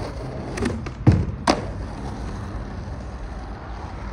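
Skateboard wheels rolling on asphalt, with three sharp clacks and thuds of the board hitting the ground between about half a second and a second and a half in. The loudest is a heavy thud near one second in, like a board popped and landed in a flatground trick.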